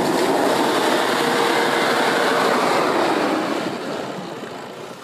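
An off-road 4x4 vehicle driving past, engine and tyres loud and steady, then fading away over the last couple of seconds.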